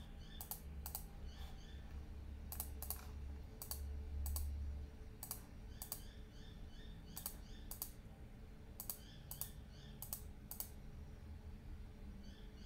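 Irregular clicks of a computer keyboard and mouse, sometimes in quick pairs, over a low steady hum.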